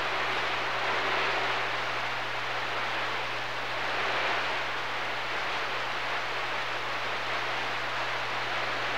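CB radio receiver on 27.025 MHz (channel 6) hissing with open-channel static and no one talking, the hiss swelling and fading slightly, over a steady low hum.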